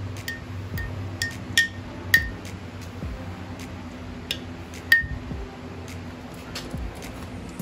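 Metal spoon clinking against the inside of a glass jar while stirring wet cotton balls. There are about seven short, ringing clinks over the first five seconds, and the loudest come about two and five seconds in.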